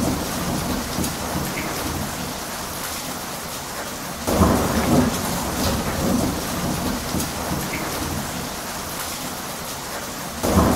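Steady heavy rain with rumbling thunder. A fresh rumble breaks in suddenly about four seconds in, and another comes near the end.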